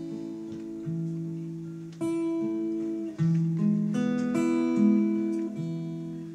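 Takamine steel-string acoustic guitar playing a slow instrumental passage. Chords and single notes are struck and left to ring, with higher notes added in the middle, and the sound dies away near the end.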